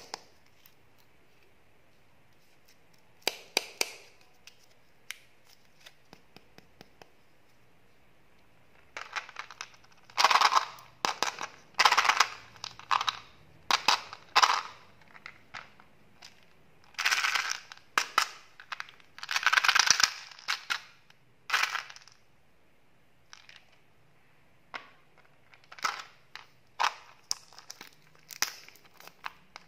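Clear plastic film wrapper on a candy tube crinkling as fingers work it loose and peel it off. Scattered clicks come first, then dense bursts of crackling in the middle, and lighter crackles near the end.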